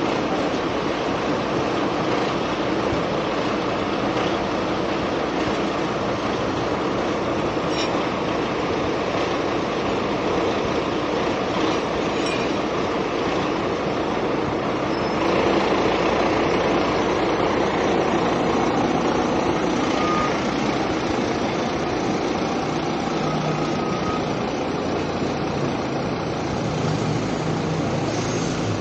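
A fire engine's diesel engine running steadily, heard up close.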